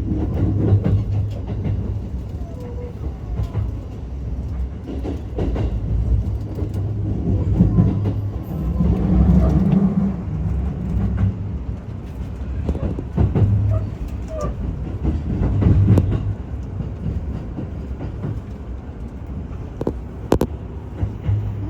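Commuter train running on the rails: a steady low rumble that swells and eases, with scattered sharp clacks from the wheels.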